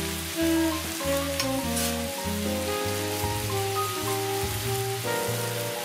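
Pork and bitter melon slices sizzling in a frying pan as they are stirred, with a couple of brief scrapes about a second and a half in, under background music.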